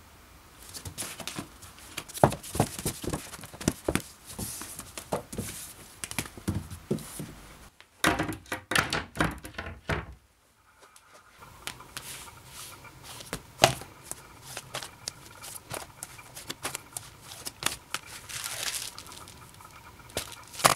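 Vinyl LP cardboard jackets being flipped through and handled: sleeves sliding and rustling against each other, with many sharp knocks and clicks. There is a short near-silent break a little after ten seconds.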